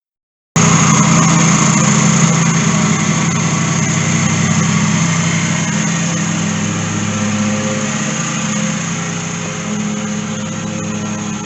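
Lawn mower engine running steadily. It cuts in abruptly about half a second in, after a brief silence.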